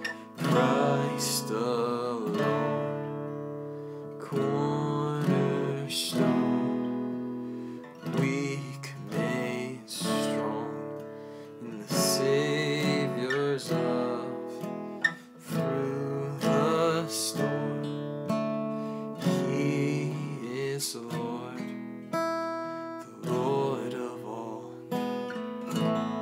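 Acoustic guitar strummed in slow chords while a young man sings a worship song.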